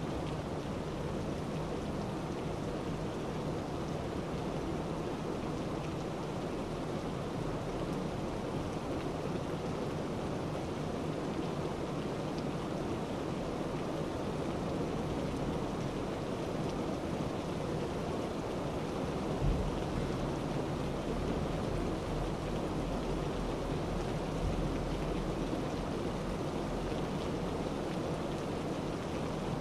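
A steady rushing noise, like rain, with a deeper rumble swelling up about two-thirds of the way in.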